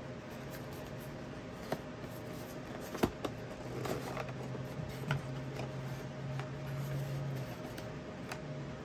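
Cardboard box being handled and opened by hand: soft rustling and scraping of the card, with a few sharp clicks, the loudest about three seconds in, over a low steady hum.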